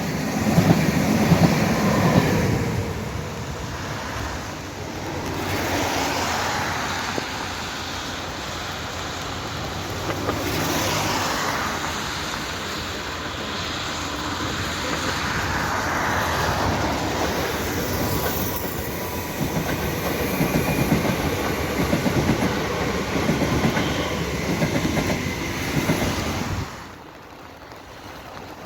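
A train passing close by, its wheels clattering over the rail joints. The noise drops away sharply near the end.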